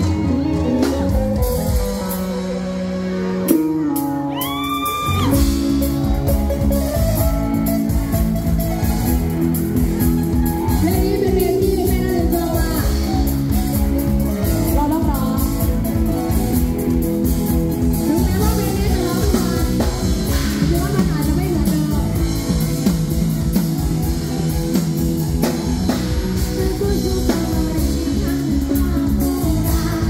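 Live rock band playing with a woman singing lead: drum kit, electric guitars and bass keeping a steady beat. About two seconds in the band thins out briefly, a pitch slides up about four seconds in, and the full band comes back in.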